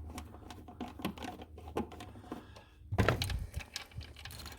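Irregular light clicks and small knocks of hand tools and wiring being worked under a car's dashboard as an alarm ground wire is taken off, with a louder clatter about three seconds in.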